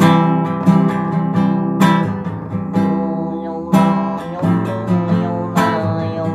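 Acoustic guitar strummed chords, each stroke ringing on until the next.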